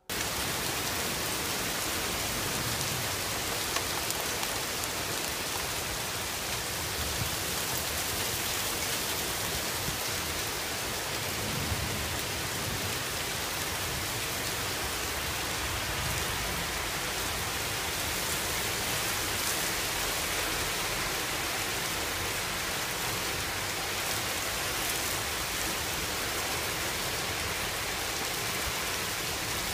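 Heavy rain pouring down steadily on a street and parked cars, a dense even hiss.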